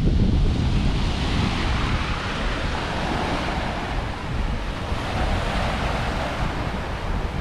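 Wind buffeting the microphone over a steady wash of ocean waves.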